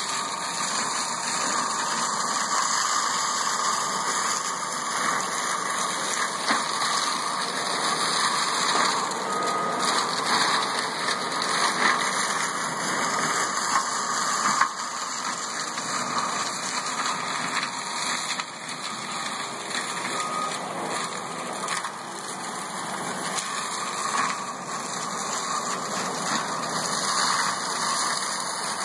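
Forestry mower running steadily as its mulching head grinds buckthorn seedlings: a constant engine-and-cutter din that swells and eases slightly as it works.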